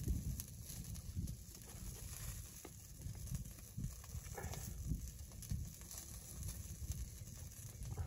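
Rain drops tapping irregularly on the tent fabric: soft low thuds, a few a second, over a faint steady hiss.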